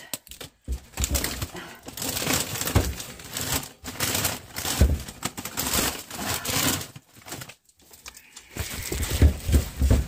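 Grocery bags and packaging crinkling and rustling in irregular bursts as groceries are handled and put away, with a few dull knocks.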